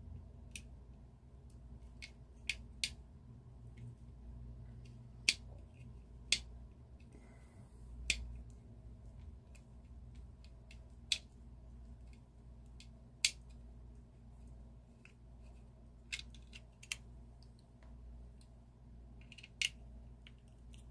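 Sparse, irregular sharp clicks of a screwdriver and hard plastic as the small screws holding a diecast truck to its plastic display base are undone, over a low steady hum.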